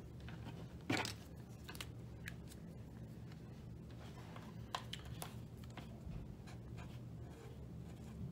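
Blue masking tape being handled and pressed around a wire to make a label flag: light rustles, taps and small clicks. The loudest is a short tearing-like rip about a second in. A steady low hum runs underneath.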